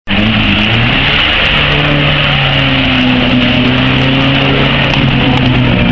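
Mitsubishi Pajero's engine held at high revs under heavy load as the 4x4 ploughs nose-deep into a flooded mud pit, the engine note steady over a loud rushing noise.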